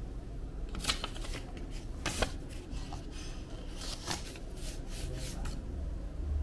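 Paper sticky notes being handled and laid on a sheet of white card: soft paper rustles and light taps, scattered through the first five seconds or so.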